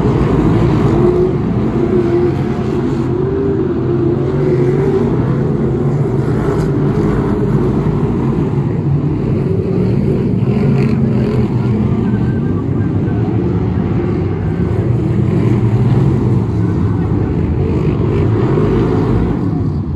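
A pack of BriSCA F1 stock cars racing, their V8 engines making a continuous loud din whose pitch rises and falls as the cars accelerate and slow through the bends.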